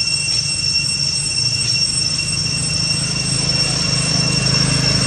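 Insects droning steadily at a high, unbroken pitch, with a low hum underneath that grows a little louder partway through.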